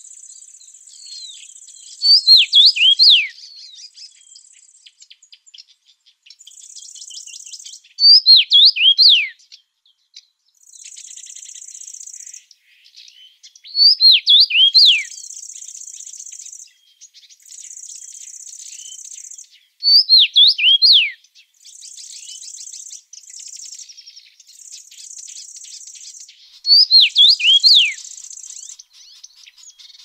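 A songbird sings the same short phrase of quick descending notes about every six seconds, five times, between stretches of steady high buzzing from insects.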